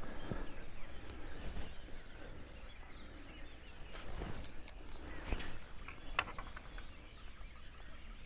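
Scattered knocks and clicks of fishing rods being handled and set on rod rests, the sharpest click about six seconds in, with faint bird chirps in the background.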